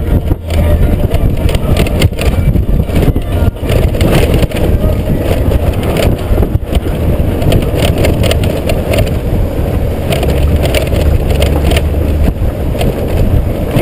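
Honda GoldWing GL1500 touring motorcycle riding over a rough, stony dirt track. The flat-six engine runs as a low rumble under the crunching and knocking of the tyres on gravel and stones, with wind buffeting the microphone.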